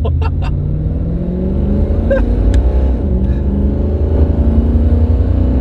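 Holden 308 V8 in a VK Commodore accelerating hard from a standstill, heard from inside the cabin. The engine note climbs, dips about two to three seconds in as the three-speed automatic changes up, then climbs again.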